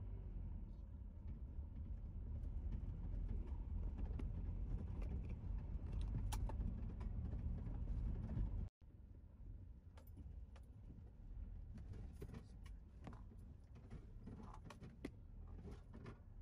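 Wind noise on the microphone with many scattered light ticks and clicks. It cuts off abruptly about nine seconds in, then resumes with less low rumble and the clicks still scattered through.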